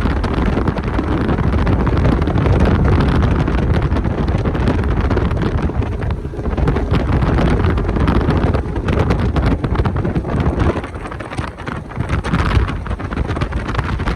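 Heavy wind buffeting the microphone: a loud, steady rumbling rush that dips briefly a few times.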